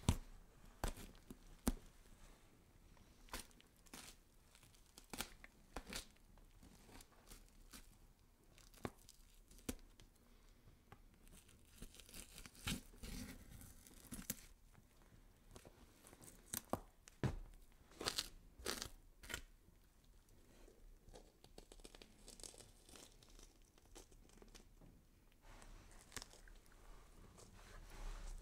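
Sound effect of flesh being scraped and cut: irregular tearing, crunching and scraping noises broken by sharp cracks, thickest around the middle.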